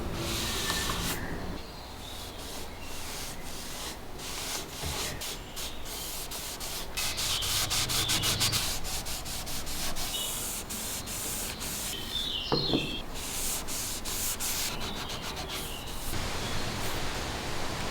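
Repeated rubbing and sanding strokes, as when a part is sanded or scrubbed by hand, in short segments that stop and start abruptly, with a brief squeak about two-thirds of the way through.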